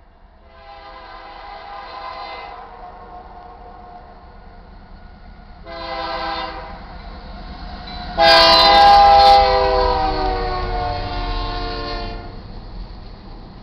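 Locomotive air horn of a BNSF GE AC44CW sounding the grade-crossing signal: a long blast, a short blast, then a louder long blast whose pitch falls as the locomotive reaches the crossing. Under it, the low rumble of the approaching train grows.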